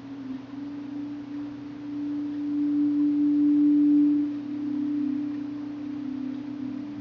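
Meditative drone: low sustained tones of two close pitches, swelling to their loudest about three to four seconds in and then easing off, with a lower tone coming in near the end.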